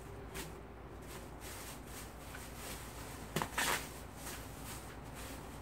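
Clear plastic bag rustling and crinkling as it is handled and pulled open, with one louder crinkle about three and a half seconds in.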